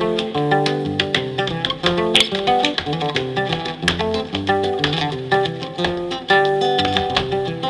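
Zapateo: an acoustic guitar plays a quick criollo tune while a dancer's shoes tap and stamp out rhythms on a hard floor, the taps picked up by a microphone held at his feet.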